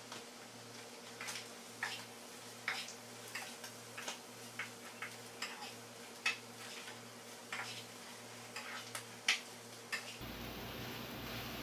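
A metal cooking utensil clinking and scraping against a frying pan while ingredients are stirred and sautéed, in irregular sharp clinks over a steady low hum; the clinks stop near the end.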